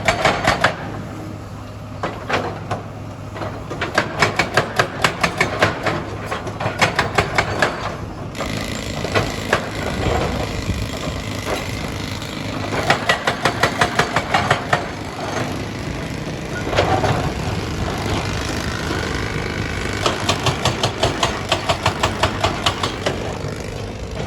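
Heavy diesel machinery running at a stone quarry, with runs of rapid sharp knocks and clatter, several a second, over a steady engine drone. The sound changes about eight seconds in, taking on more hiss and a faint steady high whine.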